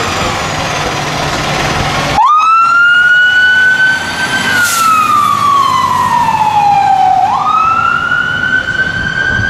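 Fire engine (2017 Spartan Gladiator pumper) running as it pulls out, then about two seconds in its siren starts wailing. The siren rises quickly, falls slowly over about three seconds, then rises again.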